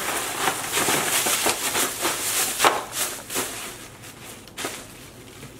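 Thin plastic carry-out bag rustling and crinkling in a run of sharp crackles as a takeout container is packed into it, busiest at first and thinning out near the end.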